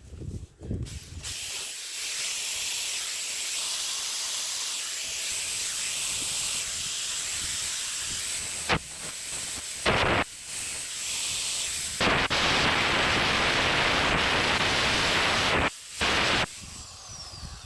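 Angle grinder cutting and grinding sheet-steel patch plates: a steady hiss that starts about a second in and grows louder briefly about ten seconds in. It is louder again for a longer stretch from about twelve seconds, with a short break near the end.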